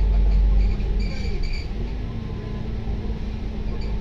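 Volvo B9TL double-decker bus's six-cylinder D9B diesel engine and drivetrain running as the bus drives, heard from the upper deck with road rumble. The deep drone eases off a little under a second in, then a steady engine whine rises slightly in pitch and holds.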